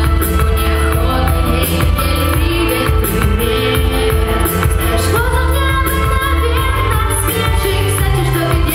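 A boy singing into a handheld microphone over a loud pop backing track.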